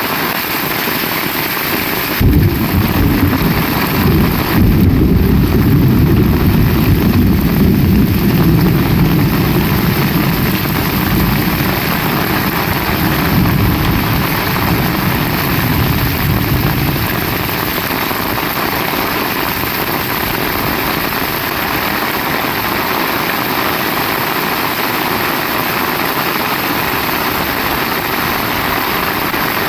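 Heavy rain falling steadily. About two seconds in, thunder cracks suddenly and rolls into a long, low rumble that dies away over some fifteen seconds.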